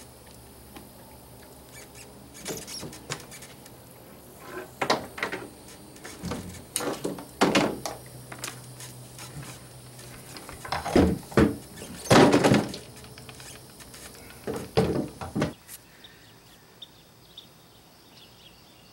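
A string of short metallic clanks, rattles and scrapes, coming in clusters a second or two apart, as the metal ratchet buckle of a tie-down strap is worked by hand. They stop about three-quarters of the way through.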